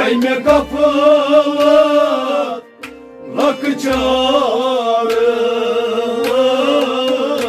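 Kashmiri Sufi music: a wavering, ornamented melody over instrumental accompaniment, with a few deep drum strokes. The music breaks off briefly about two and a half seconds in.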